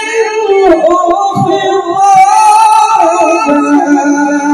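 A male qari reciting the Quran (tilawah) through a microphone, in a high-pitched, ornamented melodic voice, holding a long wavering high note in the middle.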